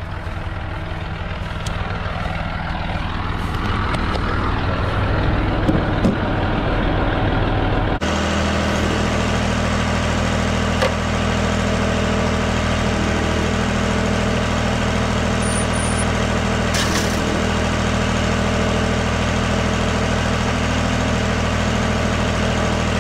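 Farm tractor engine running at a steady speed, louder and closer after a cut about eight seconds in.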